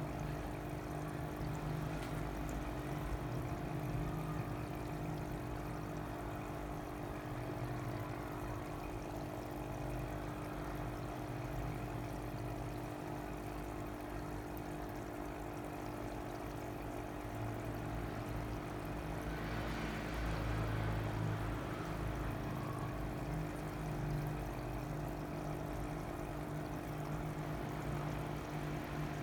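Water pouring and trickling into fish tanks over the steady hum of aquarium water pumps, a constant drone with a few fixed tones; the water grows a little louder about two thirds of the way in.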